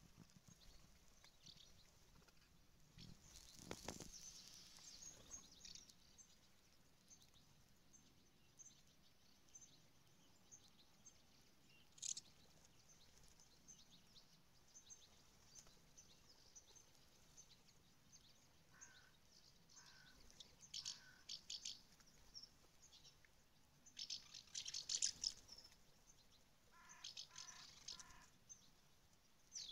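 House martins calling: scattered short, high chirps and twitters, with a louder run of rapid chirping about three-quarters of the way through.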